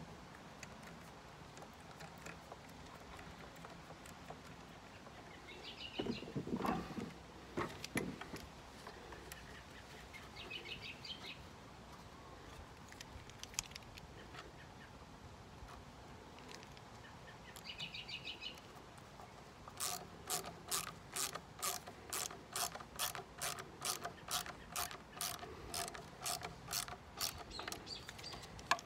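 Hand ratcheting screwdriver driving screws into the wooden crate's plywood panels, its pawl clicking in a steady run of about two and a half clicks a second through the last third. Shorter bursts of ratchet clicking and a few thumps of the wooden parts being handled come earlier.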